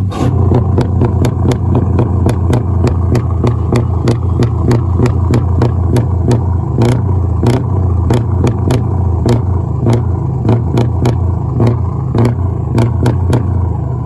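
Scania V8 diesel truck engine running at a steady speed with a loud, deep exhaust rumble, broken by sharp irregular cracks two or three times a second.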